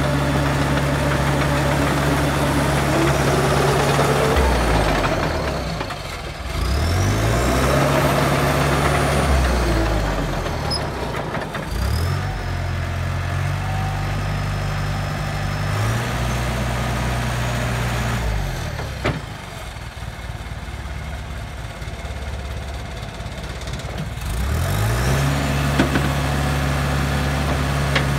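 International Dresser TD8E crawler dozer's diesel engine running under the operator's hand, its speed falling away and climbing back several times as the machine is moved, with a longer low stretch past the middle before it revs back up near the end.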